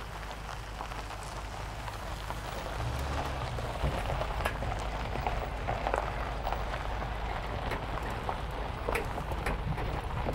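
Pickup truck towing a boat trailer over desert gravel: a steady crunch and crackle of tyres on gravel, with many small clicks over a low engine rumble that grows louder about three seconds in.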